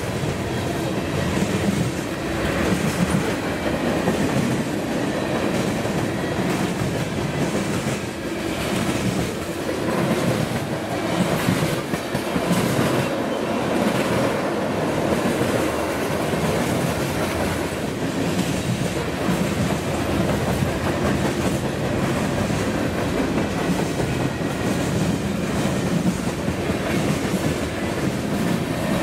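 Freight cars of a passing Norfolk Southern freight train rolling by close at hand: a steady rumble of steel wheels on rail, with scattered clicks as the wheels cross the rail joints.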